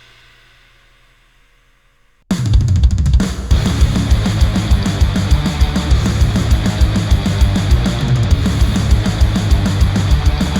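Music played back through Sennheiser headphones and picked up by microphones. A track fades out to near silence, then about two seconds in the next track starts suddenly with a loud drum kit: rapid bass drum beats under cymbals.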